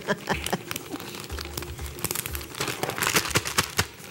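Clear plastic bag crinkling and rustling in irregular crackles as skin-on chicken thigh pieces are shaken inside it with wheat flour to coat them.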